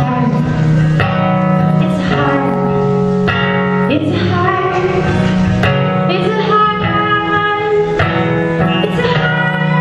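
A woman singing a folk song live over acoustic guitar.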